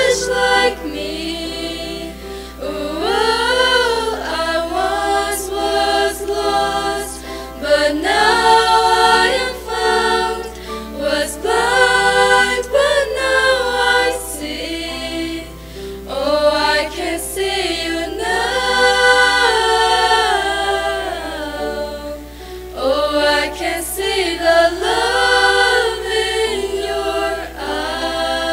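A small group of young women singing a hymn together, with long held notes and short breaks between phrases.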